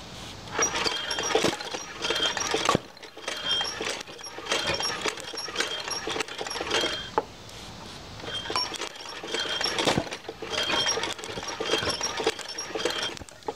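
Homemade hardware-store piston engine being turned over by hand with its crank, running on starting fluid: bursts of metallic clicking and clinking from the moving crank, gears and valves, about one burst a second.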